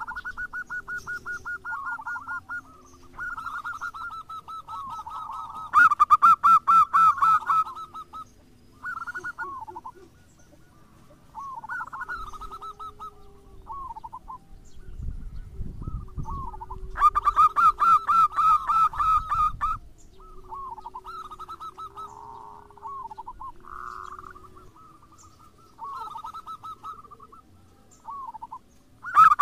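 Zebra doves (perkutut) singing: phrases of rapid, staccato cooing notes that come again and again, loudest about six seconds in and again at about seventeen seconds. A softer, lower cooing runs underneath.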